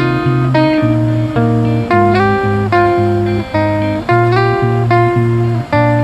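Background music: acoustic guitar picking a melody over bass notes, with a new note about every half second.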